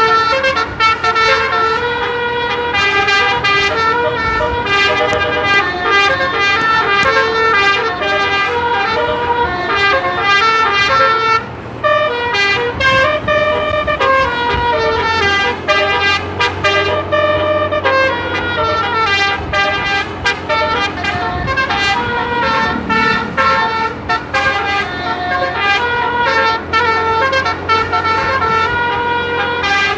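An 18-note Basuri musical air horn ('telolet') on a bus, playing a continuous melody of quickly stepping horn notes, broken briefly about twelve seconds in.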